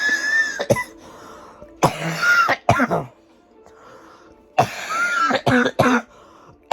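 A person coughing in three fits, each a run of several coughs; the first fit is already under way at the start. It is a lingering cough some 25 days old, which he thinks is in its last stage.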